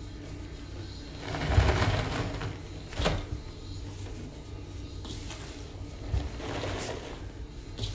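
Hands squeezing and rubbing a dry sponge packed with Comet cleanser powder, a rough powdery scrunching that swells loudest about a second and a half in and again near the end. A single sharp knock comes about three seconds in.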